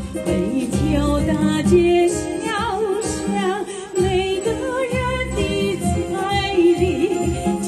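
A woman singing with vibrato into a microphone over amplified keyboard backing music.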